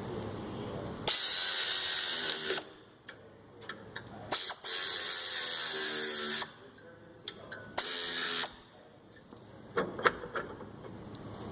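A power ratchet-type tool run in three bursts, the first about a second in, the second and longest in the middle and a short one near the end, with small clicks and knocks of tools between.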